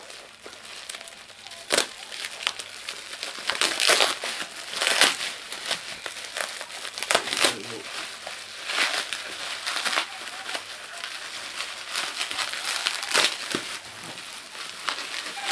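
Clear plastic gift wrapping crinkling and crackling as hands pull it off a boxed present, in many short, irregular crinkles.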